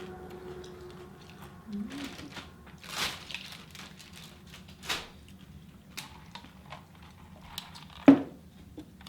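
Eating and food-handling noises at a meal: scattered crackles, squishes and taps, with one sharp knock a little after eight seconds in.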